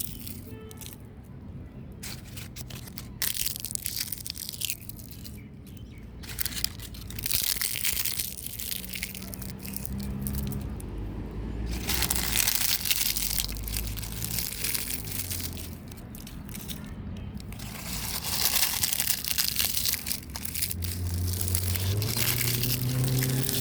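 Leaves crackling and crunching in irregular spells of dense crackle, heaviest in the middle and again near the end.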